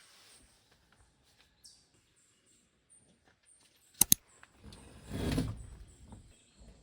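Small birds chirping faintly in short repeated high notes. About four seconds in come two sharp clicks in quick succession, the loudest sounds here, followed by a brief low rush of noise that swells and fades.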